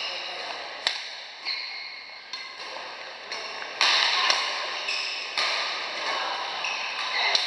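Badminton rackets hitting a shuttlecock in a rally: a string of sharp cracks at uneven gaps, about one a second, the loudest about four seconds in, each echoing in the large hall.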